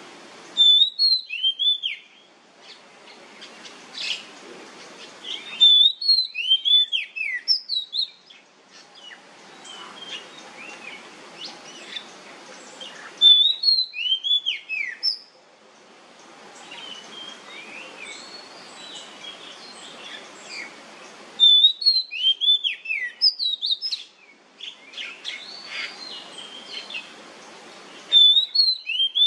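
Oriental magpie-robin singing loud whistled phrases of quick rising and falling notes, a phrase every several seconds. Between phrases a steady hiss cuts in and out abruptly.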